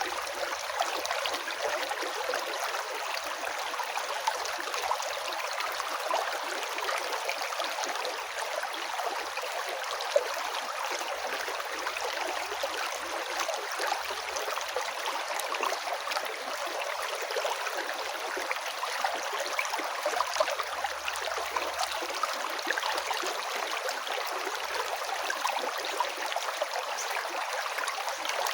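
A river flowing: a steady rush of water with fine, continuous splashing and burbling.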